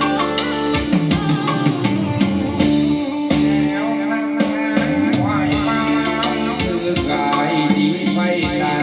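A recorded song with singing over guitar and drums, played back through loudspeakers being demonstrated.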